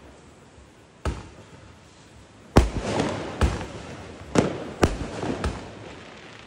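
Fireworks bursting in the night sky: about seven sharp bangs at uneven intervals, some in quick succession, each trailing off with echo.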